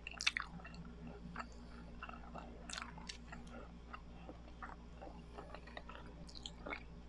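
Close-miked mouth chewing of biko, the sticky Filipino sweet rice cake, with wet smacking and sticky clicking sounds, the sharpest just after the start.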